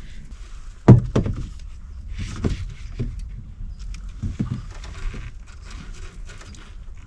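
Handling noise from tucking wires into an outdoor electrical box: a sharp knock about a second in, then several lighter knocks and rustling of the wires and hardware.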